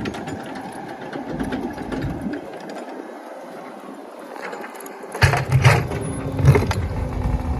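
Excavator working against a large stone: a steady mechanical whir, with a few loud knocks about five and six and a half seconds in.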